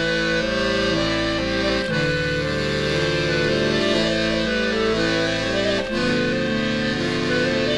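Instrumental music led by accordion playing held chords that change about once a second.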